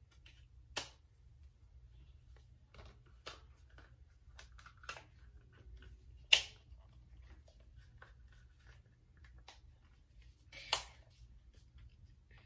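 Phone case being fitted onto an iPhone 11 by hand: scattered small clicks and snaps as the case edges go over the phone, the sharpest about six seconds in and another strong one near the end.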